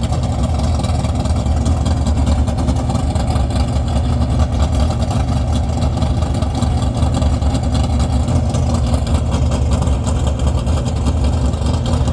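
A vehicle engine idling steadily, low and even, with no revving.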